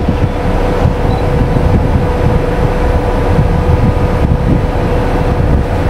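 Motorcycle riding at a steady speed, its engine giving a steady note under heavy wind rumble on the camera's microphone.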